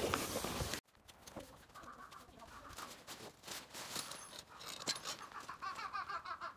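Faint rustling of nylon tent fabric with light clicks and clinks from the metal poles and corner hooks as a dome tent is put up.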